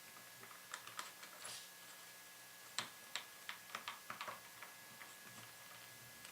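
Faint, irregular small metallic clicks and ticks of a Phillips screwdriver driving the retaining screw that holds the cam and cam shifter onto a cam lock's plug.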